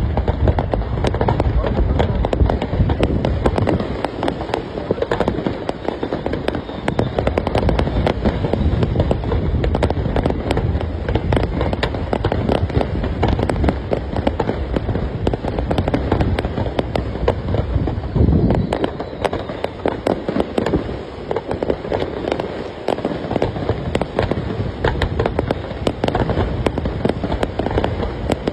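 Fireworks display: a continuous barrage of booming bursts and rapid crackling, with no pause.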